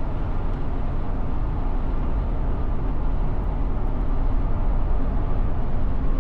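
Steady engine and road noise inside the cabin of a 1991 Volkswagen Vanagon Syncro cruising along a highway, a continuous low rumble with no change in pace.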